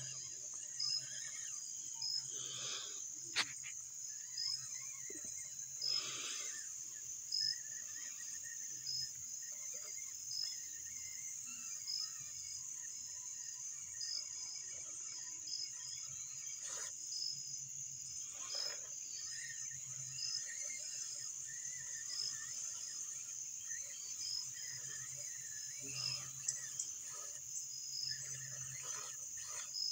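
Evening insect chorus: a steady high-pitched buzz with regular short chirps repeating throughout, under a faint low pulsing hum. A few brief scuffing noises come and go, about two, six, eighteen and twenty-six seconds in.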